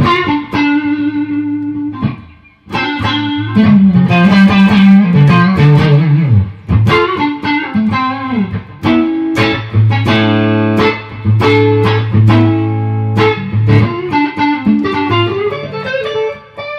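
Clean electric guitar, a Squier Stratocaster Deluxe into a Mesa Boogie Mark Five:25 on its clean channel, played through a diode-bridge compressor pedal with its time control at maximum: picked single notes and chords that ring on, with a short pause about two seconds in. At this setting the pedal lets more of each note's initial attack through.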